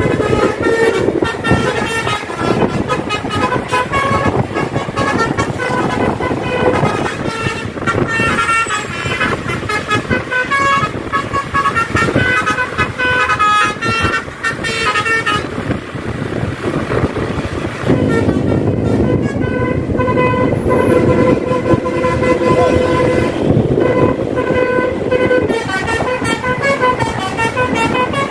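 Multi-tone 'Basuri' telolet musical horn on a tour bus, playing a tune in short stepped notes over engine and road noise. The tune pauses for a couple of seconds past the middle, then starts again.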